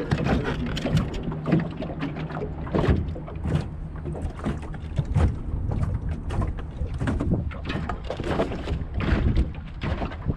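Wind gusting over the microphone and water slapping the jon boat hull, with irregular knocks and rattles of gear in the boat, over a steady low hum from the electric trolling motor.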